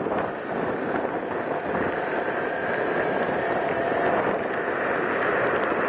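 Motorcycle riding at road speed: wind rushing and buffeting over the mounted microphone, with engine and tyre noise underneath and a faint pitched whine in the middle.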